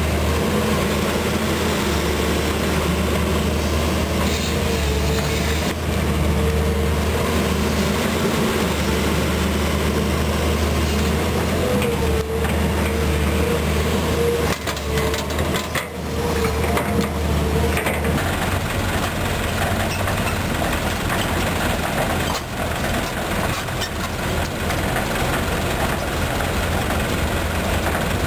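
Volvo EC210B hydraulic excavator's six-cylinder diesel engine running steadily under working load as it digs and dumps dirt, with a wavering mid-pitched tone over the engine. The engine note changes about two-thirds of the way in.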